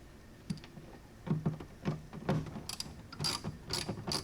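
Hand ratchet wrench clicking rhythmically as a bolt is turned, starting about a second in and speeding up to about three clicks a second near the end.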